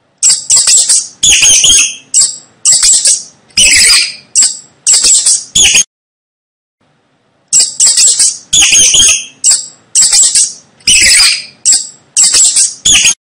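Mouse squeaking: a string of short, sharp, high-pitched squeaks, then a pause of about a second and a half, then another string of squeaks.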